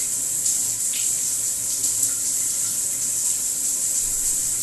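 Shower water running: a steady hiss of spray.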